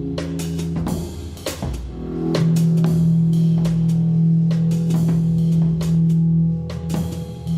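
Live band playing instrumental rock: loud, held low notes with drum and cymbal hits at a steady beat.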